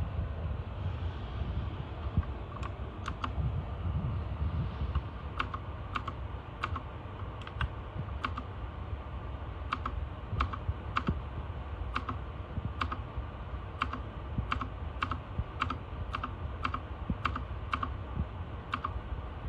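Keys being pressed one at a time on an RK Royal Kludge RK61 mechanical keyboard: separate, evenly paced clicks about one and a half a second, over a steady low rumble.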